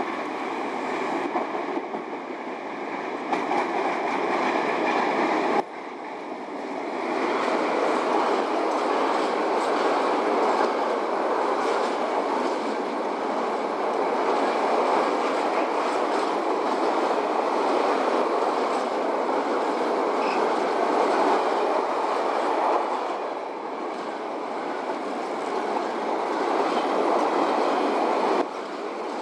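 A loaded freight train of open wagons, hauled by a PKP class EU07 electric locomotive, running past on the station track: a steady noise of wheels on rails. The sound jumps abruptly about six seconds in.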